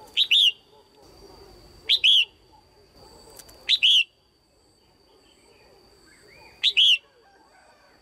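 Red-whiskered bulbul calling four times, a few seconds apart, each call a quick note followed by a slightly longer one. These are the loud, clear female calls used to stir male bulbuls or for pairing.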